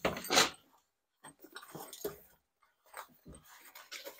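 Short, irregular rustles and soft knocks from a fabric tool roll of screwdriver bits being handled and rolled up. The loudest rustle comes in the first half second, with fainter ones spread through the rest.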